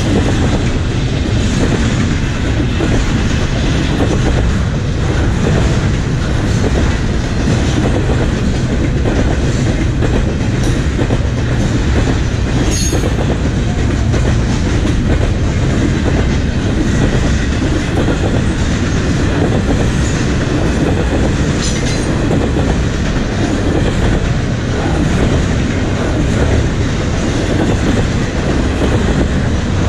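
CPKC double-stack intermodal freight cars rolling past on the rails: a steady, loud rumble and rattle of steel wheels on track. A sharp clank comes about 13 seconds in, and a fainter one about 22 seconds in.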